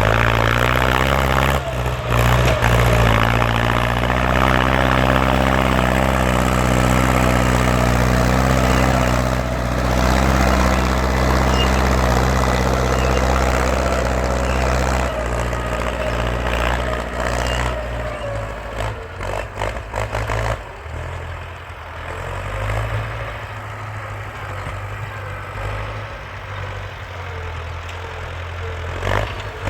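Ford farm tractor engine running loud and steady, its note changing about halfway through and turning rougher for a few seconds before it settles again.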